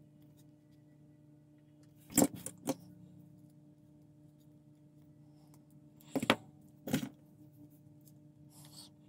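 Sharp clicks of small hobby tools, side cutters and pliers, snipping and handling a plastic model part: two clicks about two seconds in and two more about six seconds in, over a faint steady hum.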